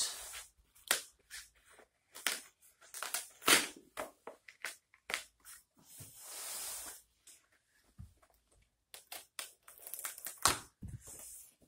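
Cardboard shipping box being opened by hand: a run of short sharp rips, scrapes and crinkles as packing tape and flaps are torn and pulled, with one longer tearing rip about six seconds in.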